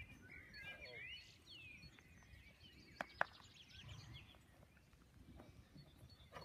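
Faint birdsong: quick chirps and trills in the first couple of seconds, over low outdoor background noise. Two sharp clicks a fraction of a second apart come about three seconds in.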